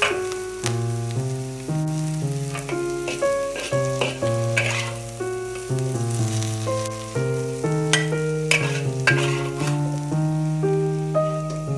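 Green beans frying in a wok while a metal spatula scrapes and tosses them, with a sharp scrape every second or two. Instrumental background music plays over it, its low notes changing about twice a second.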